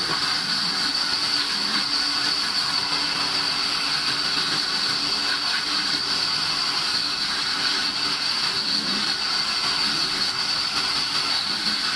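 Large vertical band saw running with its blade cutting through a round log section: a steady high tone over an even hiss, without pauses.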